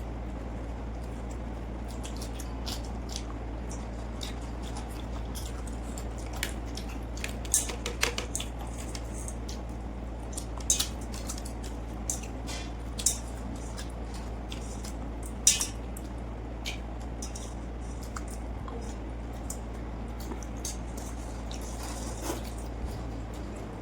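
Close-up eating of watery pakhala rice with fish fry by hand: wet squishing and chewing with scattered sharp clicks, some against a plate, over a steady low hum.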